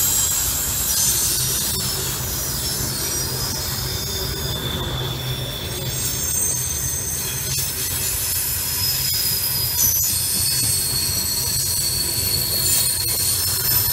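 CSX freight train's open-top hopper cars rolling past on a curve, the wheels squealing over a steady low rumble, with a few sharp clicks from wheels crossing rail joints.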